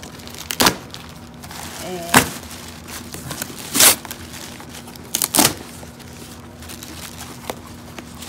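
Cardboard shipping box being torn open by hand: four short, loud rips of packing tape and cardboard flaps about a second and a half apart, with paper and cardboard rustling in between.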